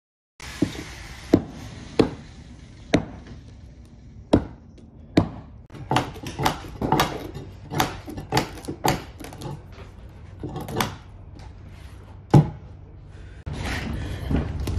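A steel bar striking and breaking out rotten wooden deck timbers on an old barge: a run of sharp, irregular knocks and cracks, coming faster in the middle. About a second before the end a steadier background noise sets in.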